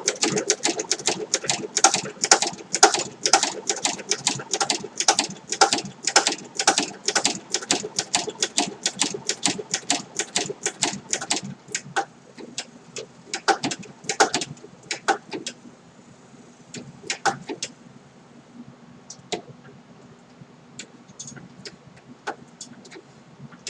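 Singer 7-34 industrial sewing machine stitching leather, each stitch a sharp clack at about three a second. After about twelve seconds it slows to a few spaced stitches, then only occasional single clicks.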